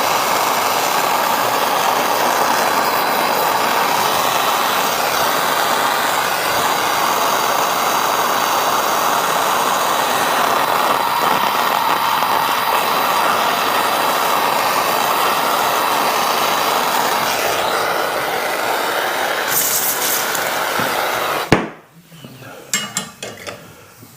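Soldering torch flame running with a steady, loud hiss, heating a steel buckle so the hard solder flows under a filigree overlay. It cuts off suddenly with a click near the end as the torch is shut off, leaving only faint clicks.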